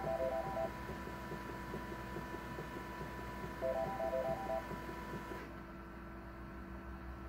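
Canon imageCLASS MF733Cdw colour laser printer clicking while it holds a print job: a short run of sharp clicks near the start, repeated about four seconds later, over a steady hum. A faint hiss drops away a little past halfway. The owner ties this clicking to prints that come out with missing lines.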